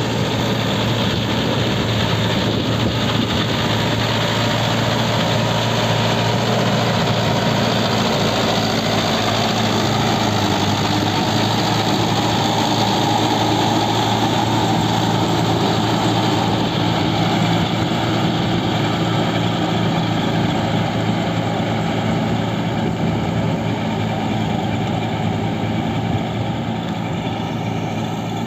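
Mahindra Yuvo tractor's 45 hp diesel engine running steadily under load as it drives a rotary tiller through wet paddy mud. It grows slightly fainter near the end as the tractor moves away.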